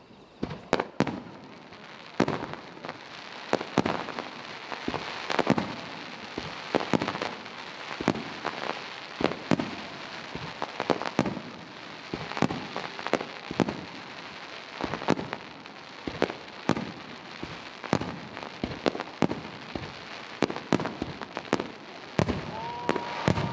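Aerial firework shells launching and bursting, many sharp bangs and pops in quick, irregular succession, often two or three a second, with crackling between them.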